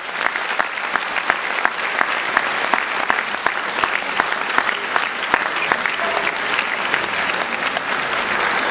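Audience applauding at the close of a dance piece: many hands clapping at once, with individual sharp claps standing out of a dense patter.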